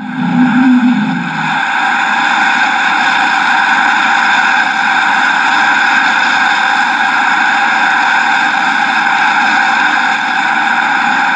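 Sound effect played from a vinyl listening record: a loud, steady, even rushing mechanical noise. A short wavering tone from the effect before dies away about a second and a half in.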